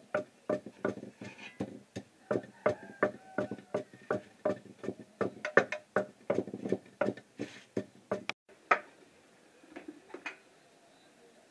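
Wooden pestle pounding a wet paste in a heavy mortar: regular thuds, about three a second, that stop about eight seconds in.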